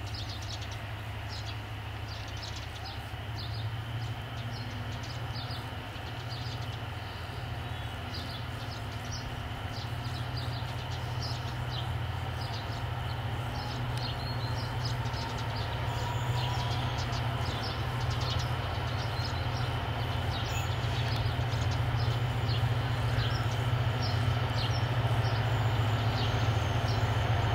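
LDH diesel-hydraulic locomotive's Caterpillar diesel engine running at a distance, a steady low rumble that grows slowly louder as the locomotive draws nearer. Small birds chirp over it throughout.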